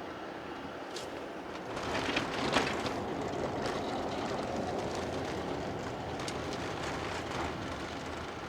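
Road and tyre rumble of a 2009 Chevrolet Tahoe heard from inside the cab while it is being driven, growing louder about two seconds in, with a few light knocks and rattles.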